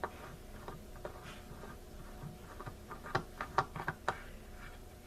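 Light clicks and taps of drawer-pull hardware being handled and fitted to a drawer, with a quick run of sharper clicks near the end.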